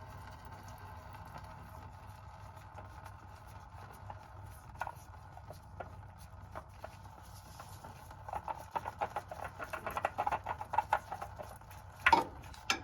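Oil filter being worked off by hand under an SUV: a run of quick, irregular clicks and taps, then a louder clunk near the end.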